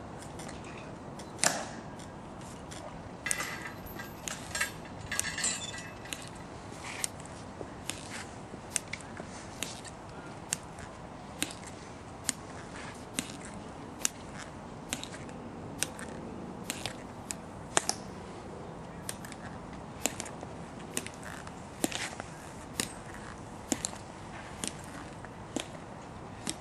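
Ceremonial guards handling an M14-style rifle during the inspection: a few sharp slaps and clatters of the rifle being worked, in the first six seconds. Then the steady, crisp clicks of a sentinel's marching steps, about one a second.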